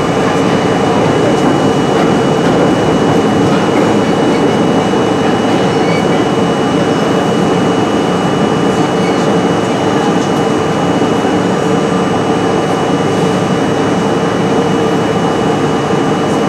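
New York City Subway R-32 car running through a tunnel, heard from the front of the train: a steady, loud rumble of wheels on rail with a constant whine held on one pitch running through it.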